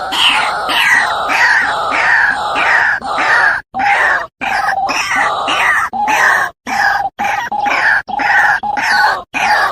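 White-breasted waterhen (ruak-ruak) calling over and over, harsh croaking notes at about two a second, broken by several abrupt short gaps.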